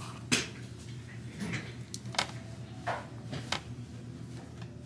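A few sharp clicks and taps of small objects being handled on a counter, over a steady low hum.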